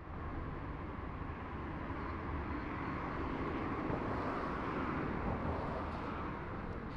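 Steady city traffic ambience: an even hum of distant vehicles and urban noise, swelling in at the start and then holding level.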